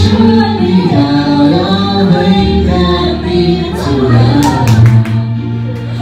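Two people singing into microphones over amplified backing music, with long held, sliding notes.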